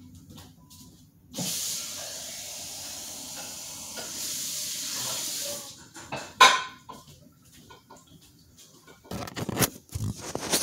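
Steady rushing hiss of running water, about four seconds long, that stops suddenly. A single sharp knock follows, then a run of bumps and knocks near the end as the phone is handled.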